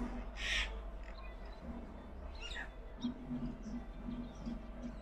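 Birds calling: scattered short, high chirps and squeaks, one sweeping down in pitch midway, over low repeated pulses.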